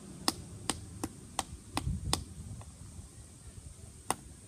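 Sharp clicking taps, about three a second for a couple of seconds, then one more near the end: a spoon stabbing repeatedly at the top of a glue bottle to break it open.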